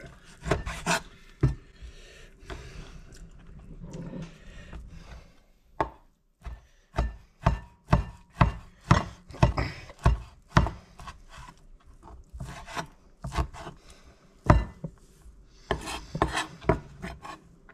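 Chef's knife chopping sliced salami on a wooden cutting board: a run of sharp knocks of the blade on the wood, about two a second and loudest through the middle, with quieter scraping between strokes.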